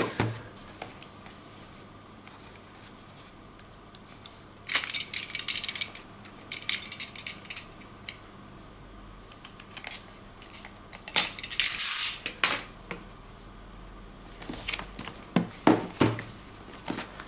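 Packaging handled during an unboxing: scattered clicks, taps and short rustles, with the busiest stretches about five seconds in, around twelve seconds and near the end.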